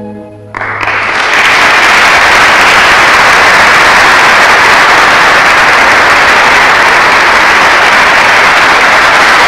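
The organ's final chord stops within the first second, and loud, steady audience applause breaks out and carries on.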